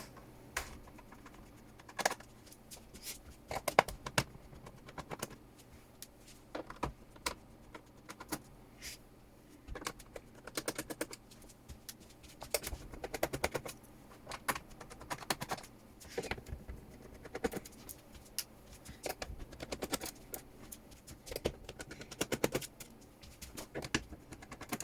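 Scattered sharp clicks and short clusters of rapid ticking from a screwdriver working the screws out of a laptop's plastic bottom case, with small screws being handled and set down.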